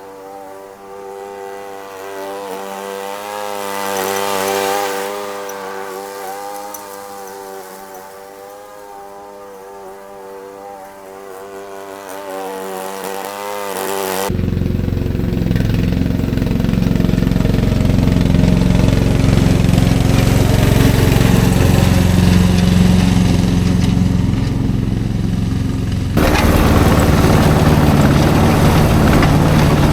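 Lawn mower engine running, its pitch wavering a little and fainter at first. About halfway through it cuts suddenly to a much louder, closer, low engine rumble, with another abrupt cut near the end.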